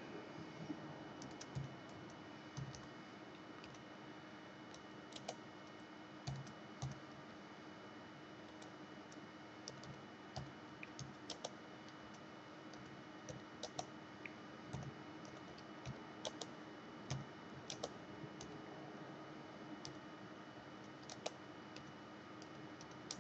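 Faint typing on a computer keyboard: slow, irregular keystrokes with short pauses between them.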